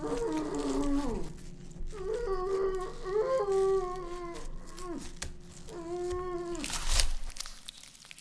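A man's muffled whimpering cries through a hand clamped over his mouth: several drawn-out moans, each falling in pitch at its end, over a steady low hum. Near the end comes a brief loud sudden noise.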